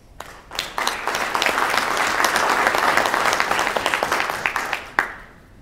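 Audience applauding. The dense clapping builds within the first second, holds for about four seconds and dies away just after one last sharp clap near the end.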